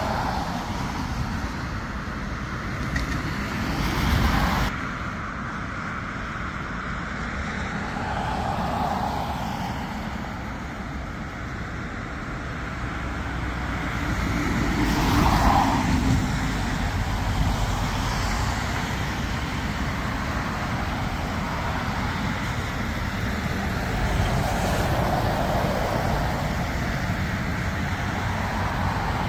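Steady outdoor rumble of engine and traffic noise. It swells briefly at about four seconds and again around fifteen seconds, and changes abruptly about five seconds in.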